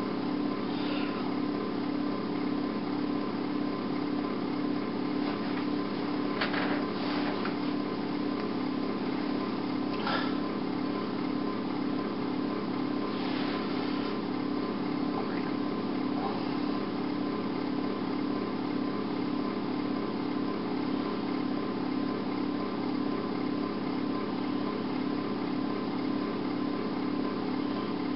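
A steady low hum with a faint high whine over it, and a few faint knocks about a quarter to half of the way in.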